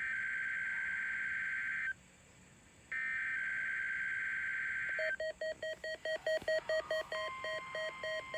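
NOAA Weather Radio SAME header: two bursts of warbling data tones, each about two seconds long with a second's gap between them. A weather radio receiver's alert alarm then starts beeping rapidly, about five beeps a second, as the receiver activates. A steady tone joins about two seconds later.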